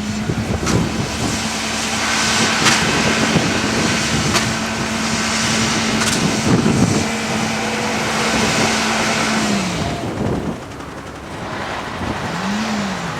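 A car stuck in snow spinning its wheels: the engine is held at steady revs with a rushing hiss of tires churning snow for about nine seconds, then the revs drop off. One short rev comes near the end.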